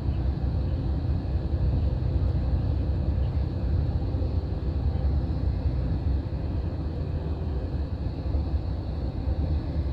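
Steady low rumble of a Greyhound coach bus cruising on the freeway: engine and tyre noise heard from inside the passenger cabin.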